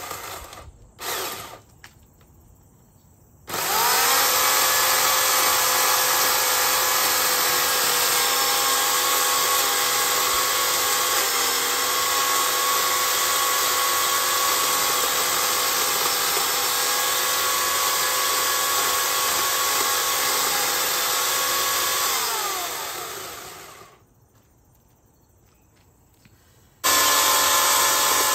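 Sun Joe electric chainsaw cutting into a tree trunk: after a couple of short blips the motor starts and runs at a steady pitch for about eighteen seconds while the chain saws through the wood, then its pitch falls as it winds down. After a few seconds' pause it starts again abruptly near the end.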